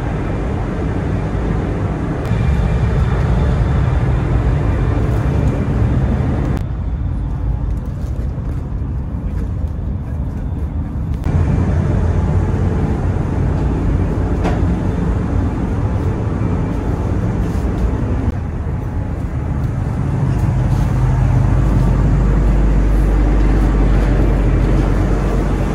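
Steady low rumble and rushing noise of the Whoosh KCIC400AF high-speed electric train running at speed. The higher hiss drops away abruptly for several seconds from about seven seconds in, then returns. The low rumble grows heavier near the end.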